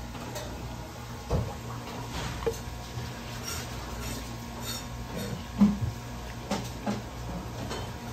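Kitchen knife and gloved hands working fish fillets on a wooden cutting board while cutting mullet for sashimi: scattered knocks and taps, the loudest about five and a half seconds in, over a steady low hum.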